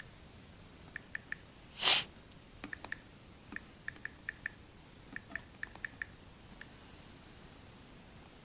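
Calculator keys being pressed in quick runs, each press giving a short electronic beep, about eighteen presses in all. About two seconds in, a single loud, short breath through the nose, like a sniff or snort.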